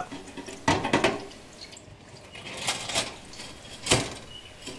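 Brass clock movement parts being set into a metal dish of clean water: a few separate clinks and knocks of metal on metal with small splashes, the loudest about four seconds in.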